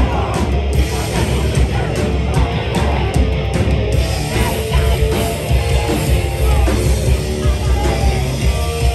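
Hardcore punk band playing live at full volume: distorted electric guitar, bass and drums, with rapid cymbal hits through the first half.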